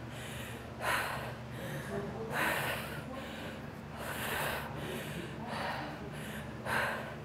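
A woman's hard, effortful breathing during dumbbell deadlifts: about five sharp, noisy breaths, roughly one every one and a half seconds, in time with the lifts.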